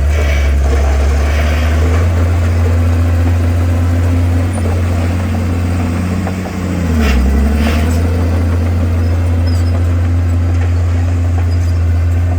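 Komatsu bulldozer's diesel engine running steadily with a deep hum; about six and a half seconds in its note dips briefly and picks back up, with two short knocks just after.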